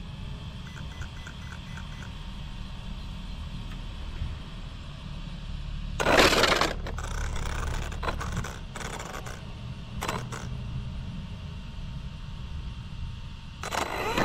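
ARRMA Fireteam RC truck lurching in short spurts on concrete, its chassis rattling and scraping: a loud burst about six seconds in, a few shorter ones after it, and another near the end, over a steady low rumble. The stop-start running is a dropout that the driver suspects is a receiver fault.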